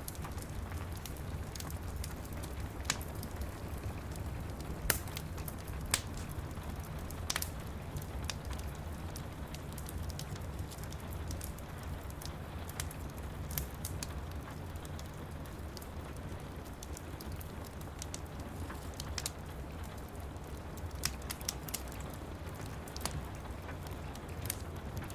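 Steady rain falling with a fireplace fire crackling: irregular sharp pops and snaps over a constant low rumble and hiss.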